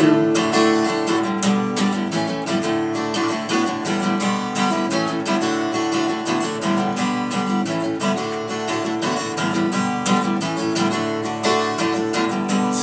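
Acoustic guitar strummed steadily through an instrumental break, chords changing every couple of seconds.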